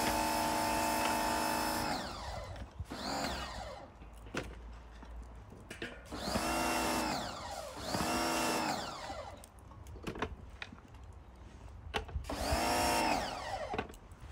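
An electric power tool motor runs steadily, then winds down about two seconds in. It follows with four short trigger bursts, each spinning up and winding down over about a second.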